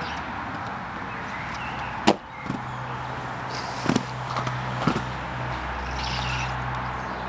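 Inline skates on concrete: a few sharp clacks as the skates strike the ground, the loudest about two seconds in, over a steady rush.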